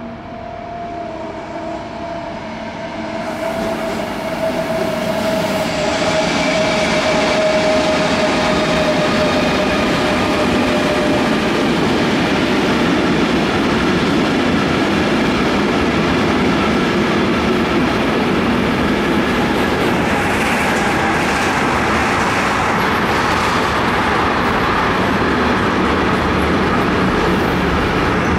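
Electric freight locomotive approaching with a whine that slowly drops in pitch, then a long freight train of tank and sliding-wall wagons rolling past close by. Its wheels make a steady rumble and rattle on the rails. The sound grows over the first few seconds and then stays loud.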